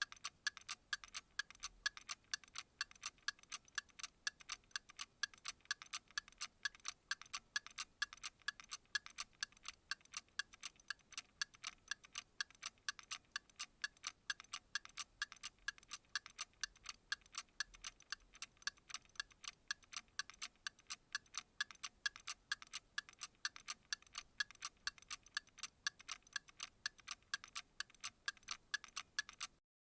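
Analog alarm clock ticking: quick, even, light ticks at a steady rate throughout.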